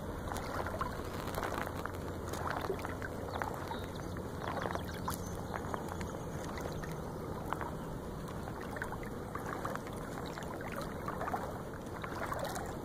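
River water lapping and splashing, with many small scattered splashes and clicks over a steady low rumble.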